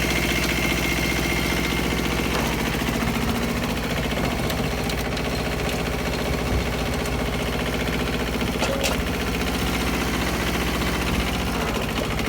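Small farm tractor engine running steadily while its rotary tiller works the soil.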